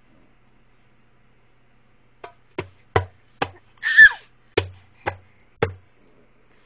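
A run of about seven sharp drum-like knocks, each with a low thud, made by the pet as a drumming noise. A single louder, harsh cry with a falling pitch comes about four seconds in, between the knocks.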